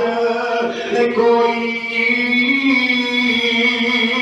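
A man's voice chanting a devotional verse in a drawn-out melodic line, holding long notes, with the pitch rising briefly about halfway through.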